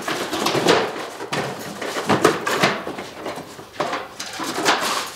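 Cardboard boxes being handled on a workbench: irregular scraping, rustling and knocking of cardboard as a long white LED light fixture is slid out of its box.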